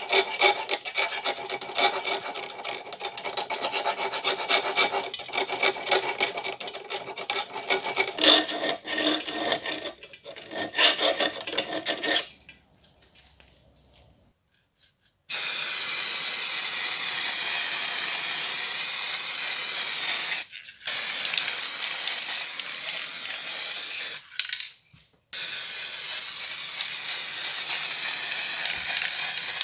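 A round file rasps back and forth in quick strokes through the hole in a steel hook wrench's handle, with a metallic ring. About fifteen seconds in, an aerosol spray can hisses steadily as the wrench is sprayed with paint, stopping briefly twice.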